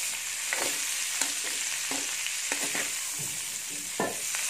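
Asparagus spears sizzling in melted butter in a hot wok, with a steady hiss under repeated scrapes and knocks of a metal ladle stirring them against the pan.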